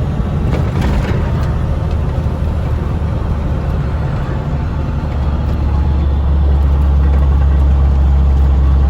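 Loaded semi truck's diesel engine and road noise heard from inside the cab: a steady low drone that grows louder about five seconds in as the truck climbs a bridge.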